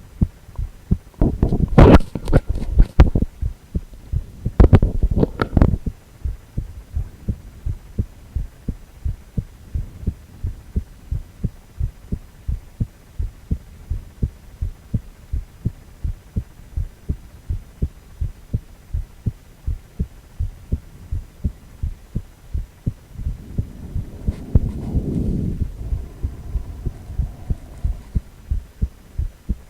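Human heartbeat from an ultrasound heart scan, a steady, regular train of low thumps. Two louder, rougher noise bursts come a few seconds in, and a swelling whoosh rises under the beats later on.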